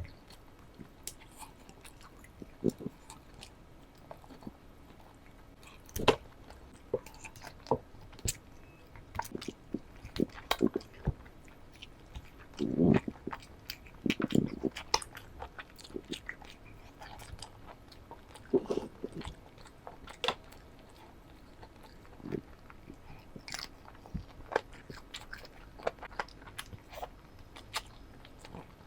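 Close-up eating sounds of a person chewing and biting into chicken leg curry with rice: irregular wet smacks and small clicks, with a louder run of chewing about halfway through.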